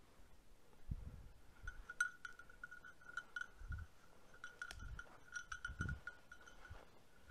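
Faint jingling of a hunting setter's bell, one clear ringing note struck in quick irregular runs as the dog moves through the cover. Several soft low thumps of footsteps are mixed in.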